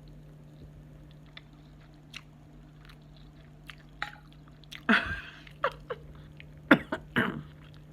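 A person chewing food with wet mouth clicks and lip smacks. Around five seconds in and again near seven seconds come short voiced sounds of enjoyment, over a faint steady hum.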